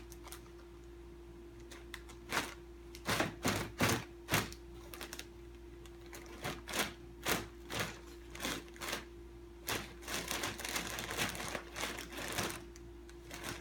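Thin plastic toilet-paper wrapper crinkling in short bursts as a cat moves its head about inside it, with a denser run of crinkling about ten seconds in.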